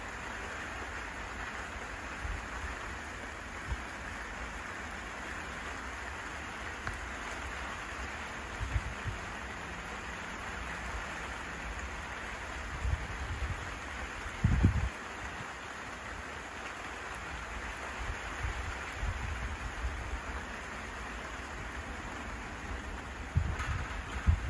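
Steady hiss of rain falling, with a few low thumps scattered through it, the strongest about halfway through and near the end.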